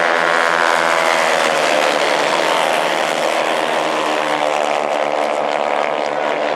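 A pack of 110 cc racing motorcycles at high revs, several engines droning together with their pitches sliding up and down as the bikes pass and brake into a corner.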